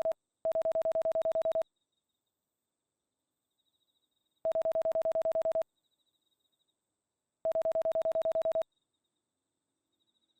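Electronic telephone ringing: a fast-warbling tone sounding in rings of about a second, three times, with a few seconds of silence between rings.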